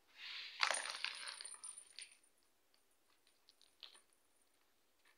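A cat's toy ball with a bell inside, jingling and rattling as kittens bat it about, loudest in the first two seconds, with a thin high ring that fades out later and a few lighter clicks near the end.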